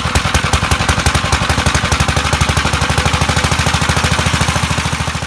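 A machine running with a rapid, even knocking beat, about fourteen beats a second, that fades out and stops near the end.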